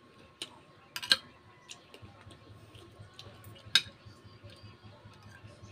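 Metal fork and spoon clinking and scraping on a ceramic plate while flaking apart cooked fish. There are several sharp clinks, the loudest about a second in and again near four seconds. A faint low hum comes in about two seconds in.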